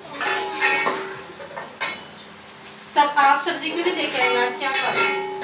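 A metal spoon clinking and scraping in a steel cooking pot on a gas stove, with one sharp clink about two seconds in. Voices are heard in the background in the second half.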